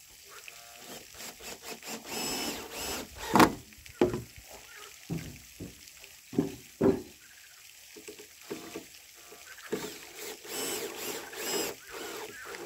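Wooden deck joist being worked into place between main joists: a run of wooden knocks and bumps, one sharp knock about three and a half seconds in being the loudest, with stretches of scraping as timber rubs into position.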